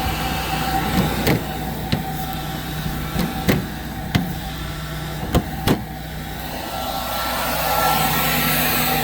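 Steady hum of a running tractor and planter with a constant whine like a fan, with about seven short sharp knocks spread over the first six seconds, two of them close together.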